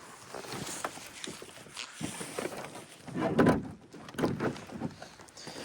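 Scattered knocks and handling noises in a small fishing boat as a poorly hooked fish is worked off the hook, with one louder bump about three and a half seconds in.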